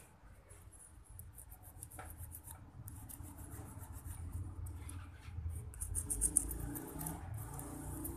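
Small hand file rasping in quick short strokes across the edge of a thin piece of tin-can metal, taking off its sharp edges.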